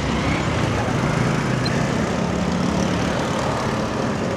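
Street traffic, with a small engine running steadily close by.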